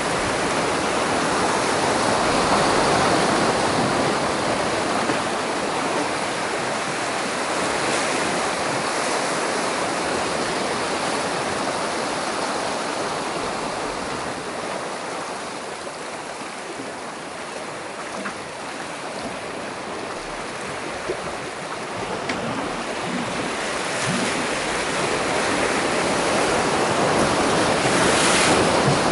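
Sea waves washing and breaking against shore rocks: a steady rushing surf that swells and eases with the surges, loudest near the end.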